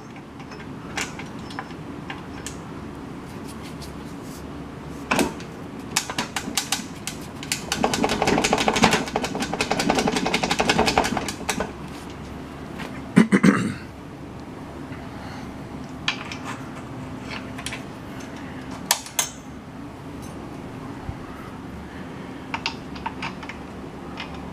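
Scattered clicks and knocks of small metal parts being handled, with several seconds of rapid clattering about eight seconds in and one louder knock shortly after, over a steady low hum.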